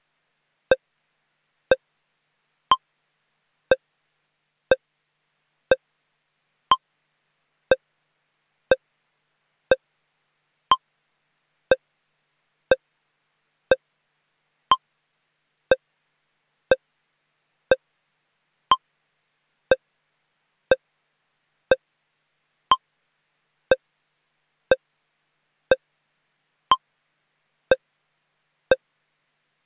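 Short electronic pips, one a second with silence between them. Most are lower, and about every fourth one is higher, about an octave up: a steady timing tone played under a broadcast holding card.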